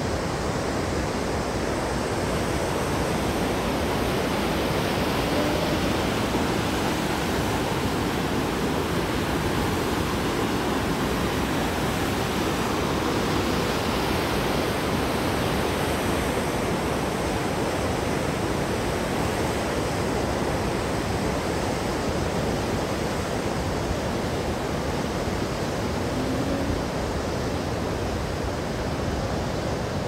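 Niagara Falls: heavy water pouring, a loud, steady rush that never lets up.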